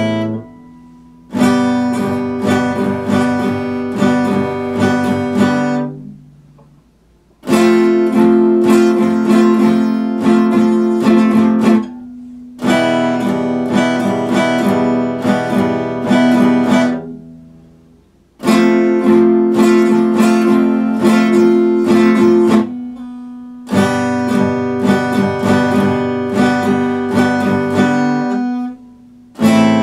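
Steel-string acoustic guitar strummed in phrases of a few seconds each. Each phrase ends with a chord left to ring and fade before a short pause and the next phrase, about six times in all.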